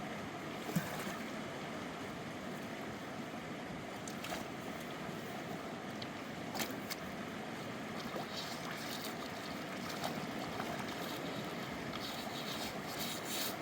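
Steady rush of a mountain river's flowing water, with a few brief sharp knocks, one about a second in and another about halfway.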